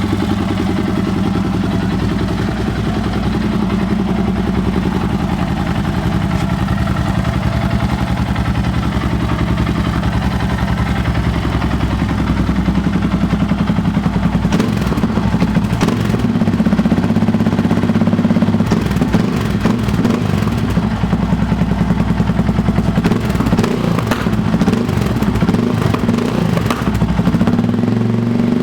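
Yamaha XT 660R's single-cylinder four-stroke engine idling through a dual-outlet Coyote aftermarket sport exhaust, a steady rapid thumping. From about halfway it grows a little louder and rougher.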